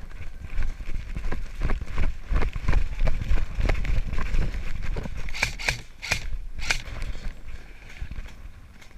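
Running footsteps and gear jostling against a body-worn camera, an irregular run of knocks over a low rumble. A few sharp cracks come about five and a half to seven seconds in.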